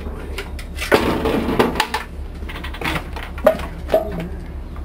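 Small metal cans being handled: about a second of scraping and rattling, then a few sharp metal clanks.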